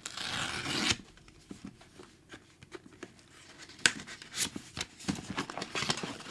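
GoPro camera packaging being opened and handled: a tearing, rustling stretch in the first second, then scattered crinkles and small clicks.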